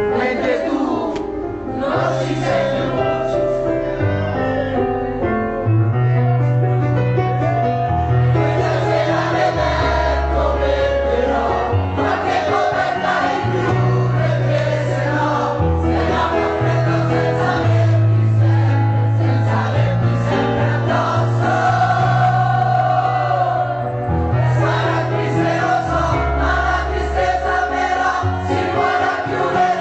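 Live music: a singing voice over a bass line of held notes that change every second or two.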